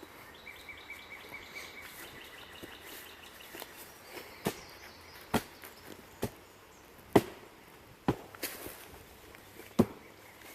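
Chopping strikes into wood, sharp and irregular, about one a second from about four seconds in, as a tree trunk is being cut down. In the first few seconds there is a faint, rapid chirping call.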